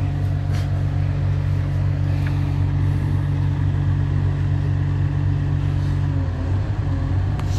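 A steady, loud low hum like an idling engine, with a faint higher tone that drops away about six seconds in.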